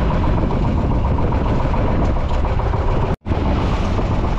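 Outrigger fishing boat's engine running steadily at close range, mixed with wind and water noise. The sound drops out for an instant about three seconds in.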